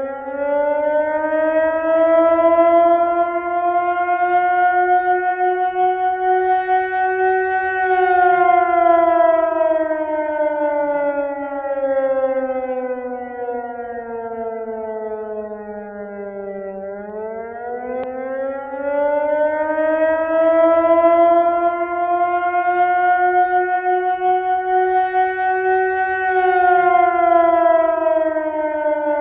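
Air raid siren wailing. Its pitch climbs slowly for about eight seconds, sinks for about nine seconds to a low, quieter point, then climbs again and starts to fall near the end.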